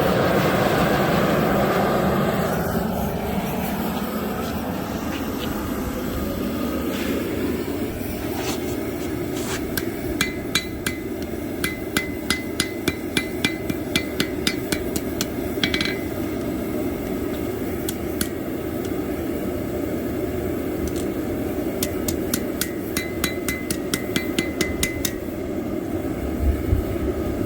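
Hand hammer striking hot knife-blade steel on an anvil, a run of ringing blows at about two to three a second that starts about a third of the way in and stops near the end, beveling the edge of a chef's knife forged from plow disc steel. A steady low rush runs underneath.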